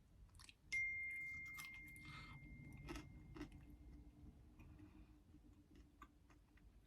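Quiet chewing and small mouth and food-handling clicks. About a second in, a single bright ding rings out and fades away over about three seconds.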